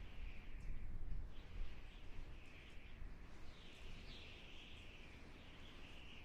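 Wind howling: a high, wavering whistle that swells and fades, loudest about halfway through, over a low rumble of gusts.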